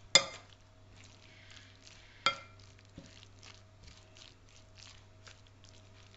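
A fork tossing shredded carrot and cabbage salad in a bowl: a sharp clink of the fork against the bowl right at the start and another, ringing briefly, a little past two seconds, then soft, regular scraping and squishing strokes about twice a second.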